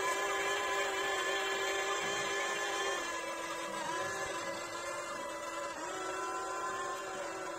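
Electric gear motors of a Huina 1593 RC excavator whining steadily as it drives on its tracks and turns. The pitch dips briefly a few times as the load on the motors changes.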